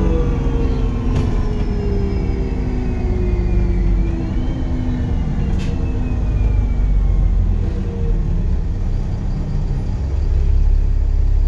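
Dennis Trident 2 double-decker bus running with its Voith automatic gearbox, a heavy diesel rumble under several slowly falling engine tones. About four seconds in, a high turbo whistle rises sharply, then slowly sinks away.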